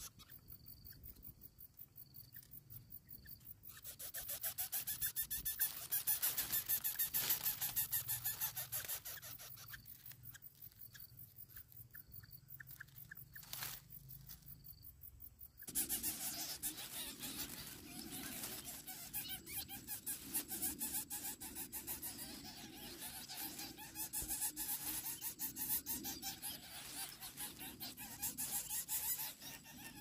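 Coucal nestlings in their grass nest giving a rapid, raspy buzzing call while begging with open gapes. The sound changes in character about halfway through.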